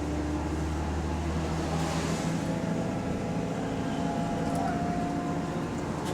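Double-decker bus engine and drivetrain running under way, heard from inside the passenger saloon. The low engine drone changes about two seconds in, and a thin whine rises slightly through the middle. The uploader calls it a bad turbo with the bus in limp mode.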